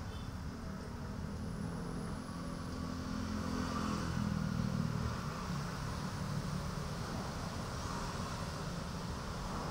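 Motor vehicle engine running off-camera, a steady low hum that grows louder about halfway through and then eases off.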